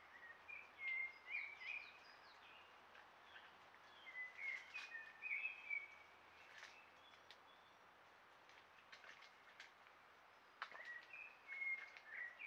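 A songbird singing short, chirpy warbled phrases in three bouts, with a few faint clicks, over a low steady hiss.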